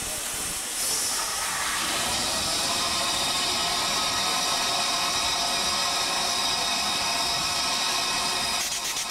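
Milwaukee Road 261, a 4-8-4 Northern steam locomotive, hissing steam while standing, the hiss growing louder about a second in and holding steady with a faint ringing pitch through it.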